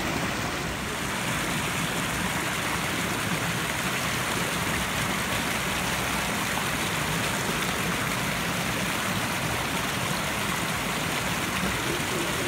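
Floodwater pouring over a small overflow weir: a steady, unbroken rush of water.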